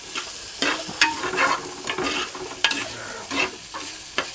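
Spatula stirring and scraping chopped shallots and green chillies sizzling in oil in a clay pot, in a series of strokes. The shallots are nearly browned.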